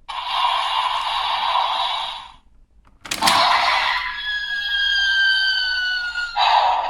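Kamen Rider Geats Boost buckle toy playing its electronic 'buckle flying away' sound effect: a rushing hiss for about two seconds, then after a short pause a sharp hit and a slowly falling whistle, and another rushing burst near the end.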